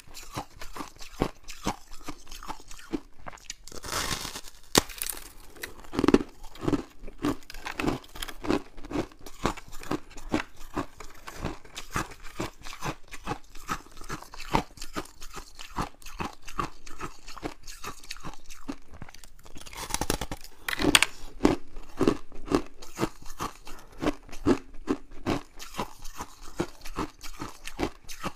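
Freezer frost crunching as it is chewed and pulled apart: a steady run of crisp crackles, with chewing runs of about two to three crunches a second and a couple of louder crackling surges.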